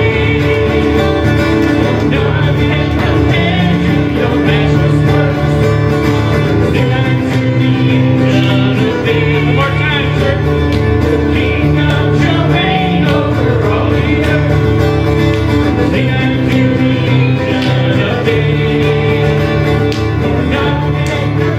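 Worship song with guitar and singing, in a country-gospel style.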